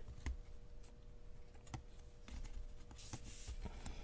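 Scattered light clicks and taps as fingers handle and press a new M.2-style SSD module down into its slot on a MacBook Pro logic board, with a brief rustle about three seconds in. A faint steady hum lies underneath.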